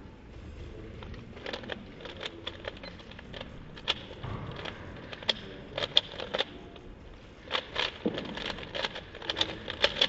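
A 3x3 Rubik's speedcube being turned at speed: a quick, uneven run of sharp plastic clicks as the layers snap round, coming in flurries from about a second and a half in.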